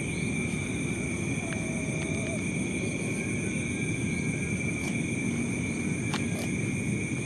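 Night insects, likely crickets, chirping in several steady high-pitched tones over a steady low rumble. A faint short cat meow comes about a second and a half in.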